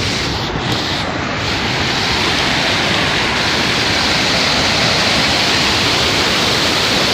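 Rain-swollen river rushing fast, a loud steady roar of water that grows a little louder about two seconds in.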